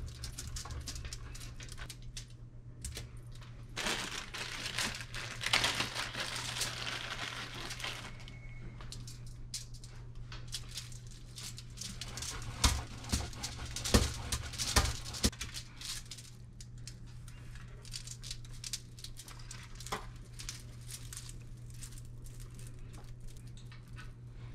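Cheese being grated on a metal grater over aluminium foil: a run of quick rasping strokes with foil crinkling, a few sharp knocks about halfway through, then lighter scratchy handling as the shredded cheese is gathered by hand. A steady low hum lies underneath.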